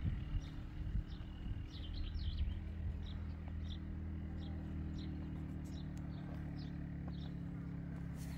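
Small birds chirping in short repeated calls over a steady low mechanical hum.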